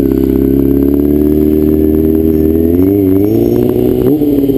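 Honda CBR600F4i's inline-four engine running at steady, held revs under throttle, with the pitch starting to dip and rise a little about three seconds in.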